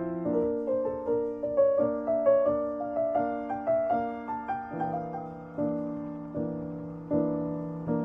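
Solo piano playing a slow, gentle piece: single notes climbing in a melody, then fuller low chords from about five seconds in.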